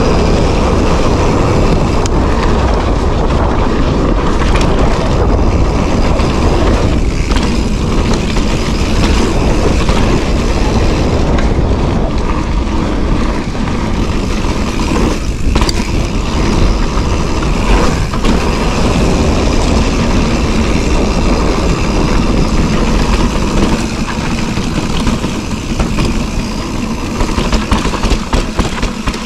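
Wind buffeting the microphone over the rumble of mountain bike tyres rolling on a dirt trail: a loud, steady noise that gets a little more uneven near the end.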